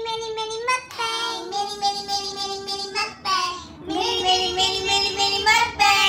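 A song playing, with a high voice singing long held notes that slide between pitches.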